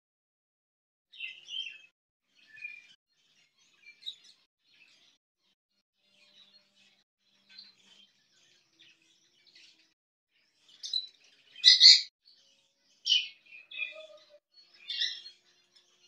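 Budgerigar chirps: short, high cheeps scattered through, growing louder and closer together from about eleven seconds in.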